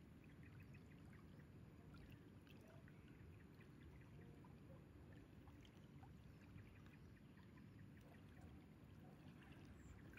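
Near silence: a faint, steady low rumble of outdoor background with scattered faint ticks.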